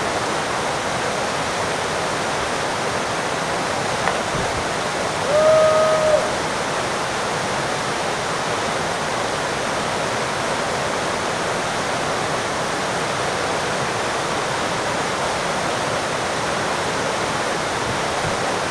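River rapids rushing steadily. About four seconds in there is a faint knock, and soon after a short, held high call, the loudest sound here.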